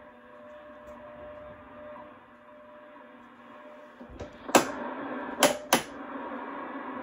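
Marconi CSR-5 shortwave receiver hissing from its speaker with a faint steady tone while tuned to WWV on 10 MHz. About four seconds in, its band range switch is turned and clicks sharply three times, after which the hiss of the new band carries on.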